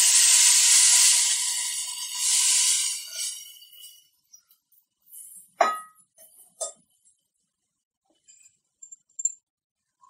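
Tamarind water hitting hot oil and okra in a clay pot: a loud sizzle that dies away over the first three or four seconds as the liquid cools the pan. About a second apart, midway through, come two sharp clinks of the steel vessel being set down.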